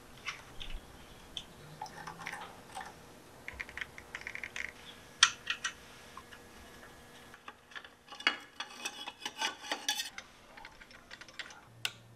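Hand tools clicking and clinking on the motorcycle's exhaust and frame hardware during removal of the stock exhaust: scattered sharp metallic clicks, with two runs of rapid clicking, the first about three and a half seconds in and a longer one about eight seconds in. The loudest is a single sharp clink about five seconds in.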